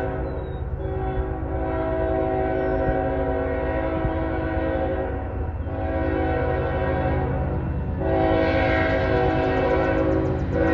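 Canadian National freight locomotive's multi-chime air horn sounding a series of long blasts with brief breaks about five and a half and eight seconds in, over the low rumble of the approaching train. The horn grows louder from about eight seconds in.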